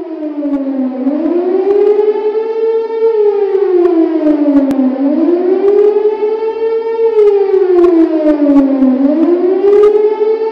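A siren-like wail that swells in and then rises and falls in pitch in slow, even sweeps, about one up-and-down every four seconds.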